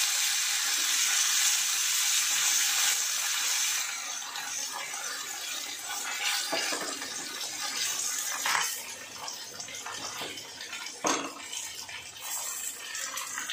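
Curry-leaf tempering sizzling in hot coconut oil in a small pan: mustard seeds, dried red chillies and curry leaves frying with a steady hiss. The hiss is loudest for the first few seconds and then quieter, with a few sharp knocks of pan and spoon.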